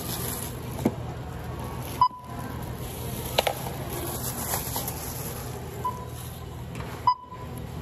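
Thin plastic shopping bag rustling and being handled at a self-checkout, over a steady store hum, with a few short electronic checkout beeps, the loudest about two seconds in and again near the end.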